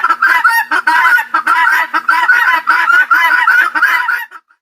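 Helmeted guinea fowl calling: a fast, unbroken run of repeated cries, several a second, that stops about four seconds in.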